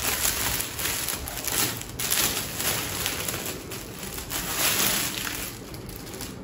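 Clear plastic packaging bag crinkling and rustling in uneven spells as a folded saree is handled and pulled out of it.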